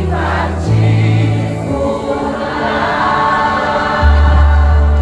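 Live gospel worship music: several voices singing together over a band, with deep held bass notes that change about every second or two.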